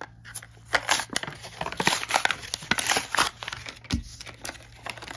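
A miniatures blister pack being torn open by hand: the clear plastic blister crinkles and the cardboard backing card tears in dense, irregular crackles. There is a single soft knock about four seconds in.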